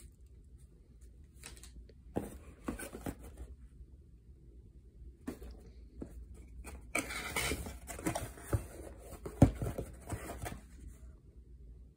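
Handling noises: packaged fireworks and their cardboard box being moved about, with rustling and scattered knocks. There is a busy stretch of handling in the second half and one loud thump about nine and a half seconds in.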